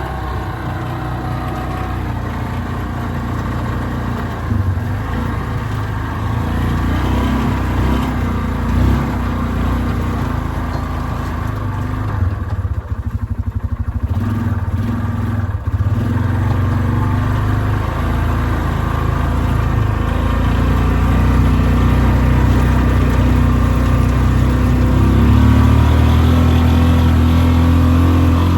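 2006 Yamaha Rhino 450's single-cylinder four-stroke engine running under way, eased off for a few seconds about halfway, then revved up harder toward the end. The engine has a knock and is running on thicker oil that was added to soften it; the owner hears it sounding better, but not good.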